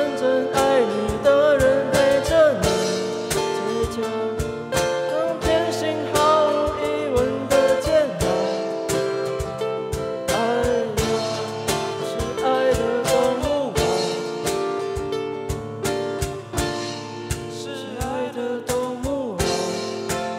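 Live acoustic music: plucked acoustic guitars accompanying a male voice singing into a microphone.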